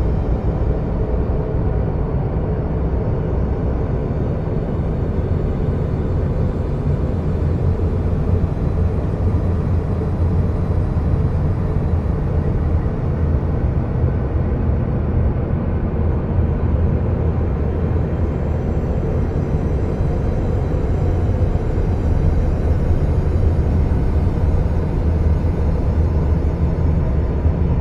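Steady, deep rumbling noise drone, strongest in the bass, with no beat, melody or breaks: a 'planet sound' space-ambience soundscape.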